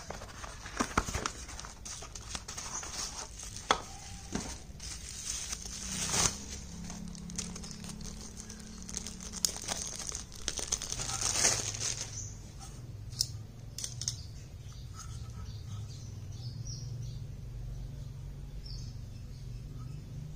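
Cardboard box being opened and handled, then clear plastic wrap crinkling and tearing as it is pulled off a small metal box. The handling clicks and rustles are loudest about eleven seconds in, then die down to a few light knocks over a low steady hum.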